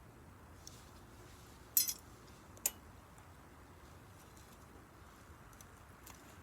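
Campfire wood crackling: scattered faint ticks and pops, a louder crackle about two seconds in and a single sharp pop just under a second after it.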